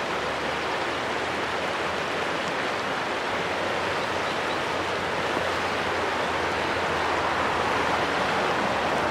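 Steady rushing of a river flowing through a rocky riffle, a little louder toward the end.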